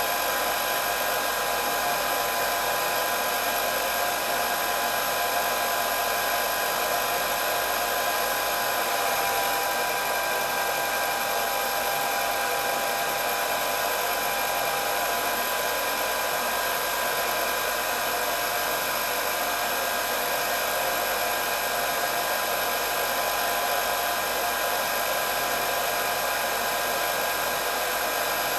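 Hair dryer running steadily: a constant rush of blown air with a steady motor whine on top.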